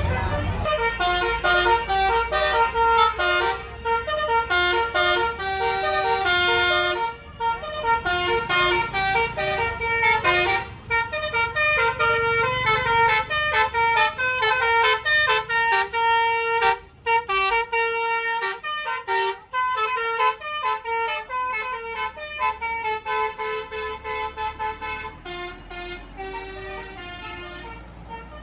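Tour bus's basuri telolet musical air horn playing a long, quick tune of short stepped notes. It pauses briefly a few times and grows fainter near the end.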